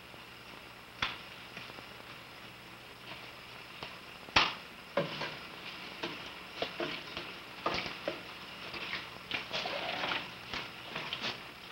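Scattered small clicks, knocks and light patter of hands working at a kitchen sink while raw chicken pieces are salted from a shaker for koshering. There is one sharp knock about four seconds in, and the clicks grow busier in the second half.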